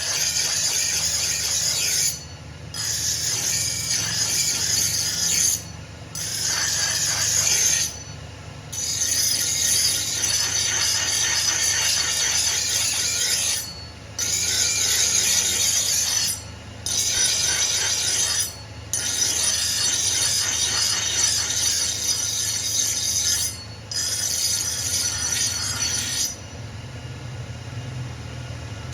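Steel axe head being ground on a powered grinder: a hissing, squealing grind in repeated passes of a few seconds each, broken by short pauses, over a steady motor hum. The grinding stops a few seconds before the end.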